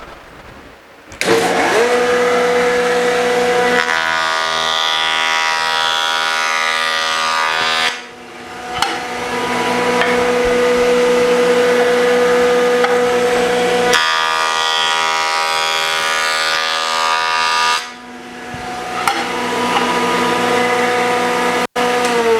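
Electric jointer starting up with a rising whine and running with a steady high whine, while a board is fed through its rotating cutterhead twice, each pass adding a rougher cutting noise for about four seconds. Near the end the motor begins to wind down with a falling whine.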